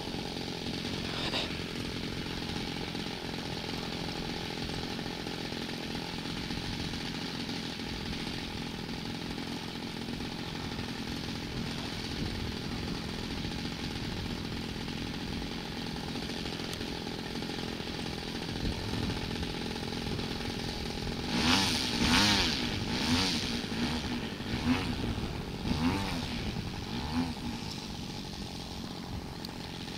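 Radio-controlled model airplane's engine running at a steady idle, then revved in a series of short throttle blips, each rising and falling in pitch, about three-quarters of the way through.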